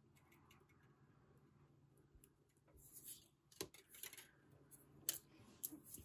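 Beading wire being threaded through small beads and pulled tight. About two seconds in, a run of faint, quick clicks and scratchy ticks starts as the wire drags through the beads and the beads knock together.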